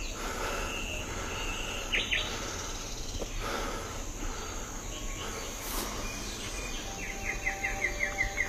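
Outdoor ambience: a steady background hiss with faint bird chirps and insects.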